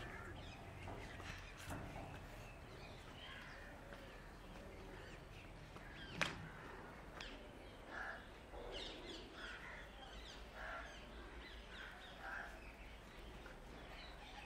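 Faint outdoor quiet with scattered short bird calls, and one sharp click about six seconds in.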